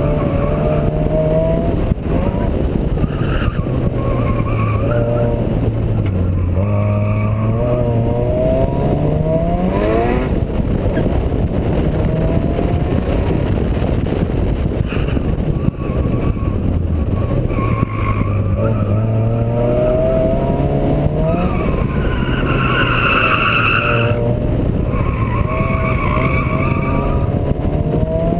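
Turbocharged Honda D16 four-cylinder engine driven hard. Its pitch climbs under acceleration and drops back at each gear change or braking point, several times over, over a steady rush of wind and road noise.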